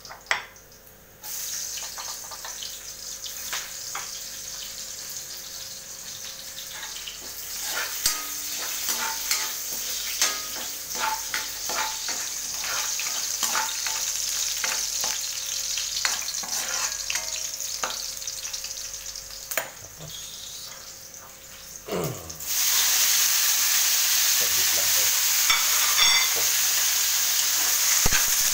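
Chopped aromatics sizzling in hot oil in an aluminium wok, with a metal spatula scraping and clinking as they are stirred. A little over twenty seconds in, sliced tomatoes go into the pan and the sizzle suddenly grows much louder.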